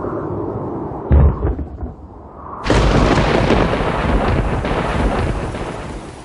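A steady rushing background, a heavy low thud about a second in, then a loud thunder-like crash about two and a half seconds in that rumbles on and slowly fades.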